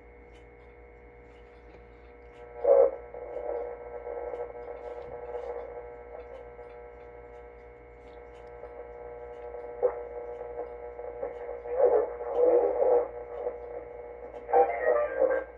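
Marconiphone Type 32 regenerative radio receiver playing through its speaker while being tuned: a steady mains hum and held whistle tones, with snatches of broadcast audio coming through about three seconds in and again from about ten seconds on.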